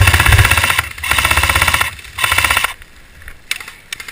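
Airsoft gun firing on full auto: three rapid bursts of closely spaced shots, each a second or less, followed by a few fainter shots near the end.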